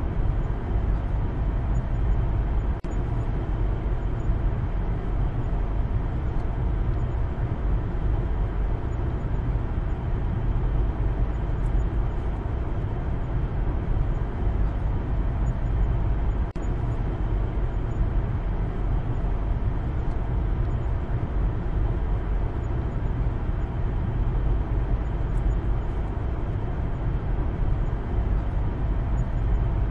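Steady engine and tyre road noise of a Maruti Suzuki Baleno driving, heard inside the cabin, with a few faint clicks now and then.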